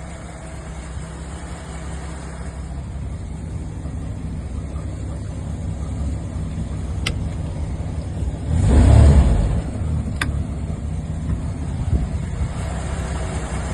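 Volvo 4.3-litre V6 marine engine running, its deep rumble building gradually, with a brief rev about nine seconds in. Two sharp clicks stand out a few seconds apart.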